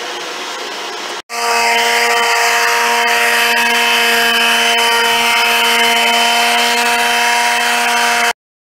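DeWalt quarter-sheet palm sander running steadily on a flat panel: a steady motor hum and whine over a hiss. It starts about a second in and cuts off suddenly near the end.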